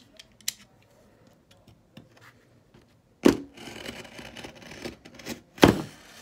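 Utility knife cutting along the stapled edge of a canvas. After a quiet start with a few small clicks, there is a rasping scrape in the second half, set off by two sharp knocks: one about three seconds in and a louder one near the end.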